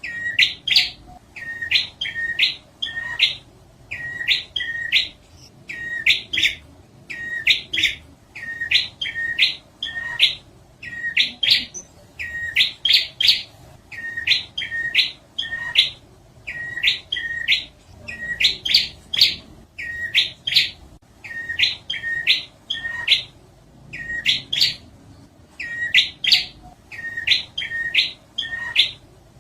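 Prinia (prenjak) song: short bursts of rapid, sharp chirps repeated about every one and a half seconds, a steady lure call for drawing in wild prinias.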